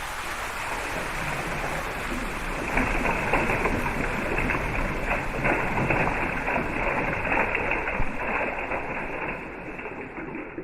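Rain falling steadily, a dense patter of drops that grows heavier a few seconds in and eases somewhat near the end.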